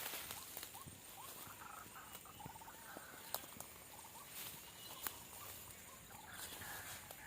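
White-breasted waterhens (ruak-ruak) calling, a run of short, repeated croaking notes. Two sharp clicks come around the middle.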